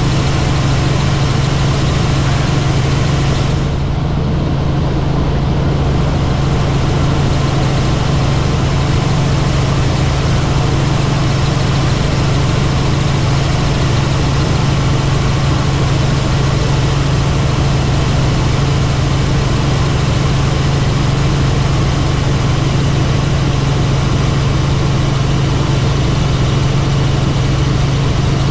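Helicopter in flight: a loud, steady drone of the rotor and turbine engine with a strong low hum over a wide rushing noise. The upper rush softens briefly about four seconds in.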